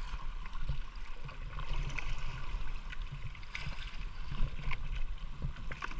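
Water lapping and splashing against the hull of a small fishing boat, a steady wash with scattered light knocks.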